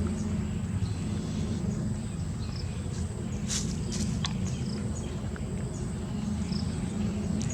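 Outdoor ambience: a steady low rumble under a constant high insect-like whine, with a few short clicks and faint chirps about halfway through.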